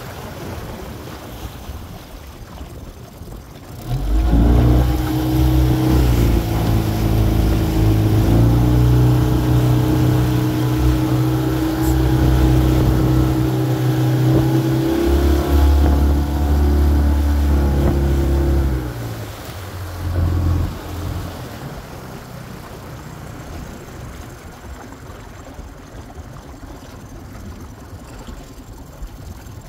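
Outboard motor of an inflatable boat opening up about four seconds in and running hard with a few steps in engine speed, then easing back after about fifteen seconds. A quieter wash of water is heard before and after.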